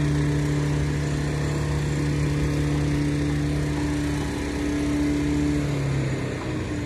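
An engine running with a steady hum, which drops slightly in pitch about two-thirds of the way through and then dies away near the end.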